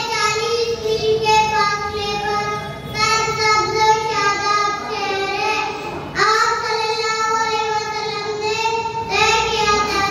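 A young girl's voice reciting in a sung, chanting style into a microphone, holding long, steady notes in phrases a few seconds long.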